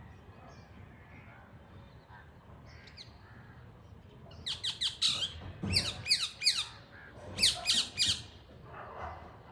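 A parrot giving harsh, rapid squawks in three quick runs of three or four calls each, starting about halfway through; each call drops sharply in pitch.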